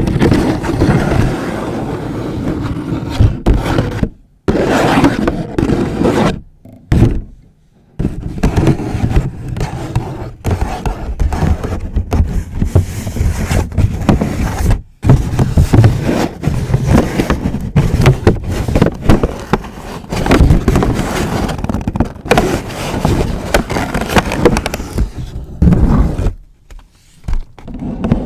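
Long fingernails scratching and crinkling a paper bag, with occasional taps, in a dense close-up rustle broken by a few short pauses.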